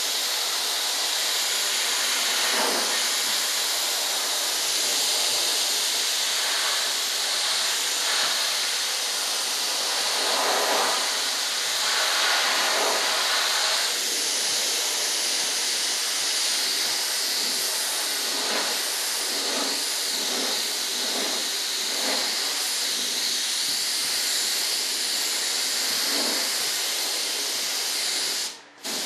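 Compressed-air paint spray gun spraying paint, a steady hiss that cuts out for a moment just before the end.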